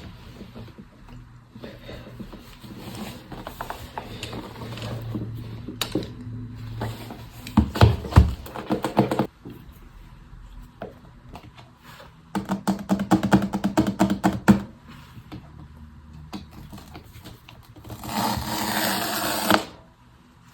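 Close handling of iPad packaging and accessories: scattered rustles and clicks, a quick run of taps in the middle, and a burst of rustling near the end.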